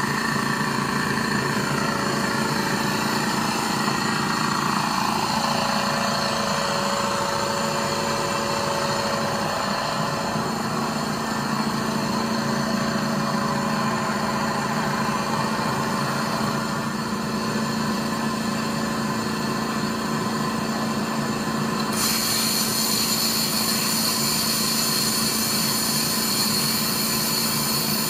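An engine or motor running steadily. About five seconds in, a tone glides down in pitch, and about twenty-two seconds in a brighter hiss starts abruptly.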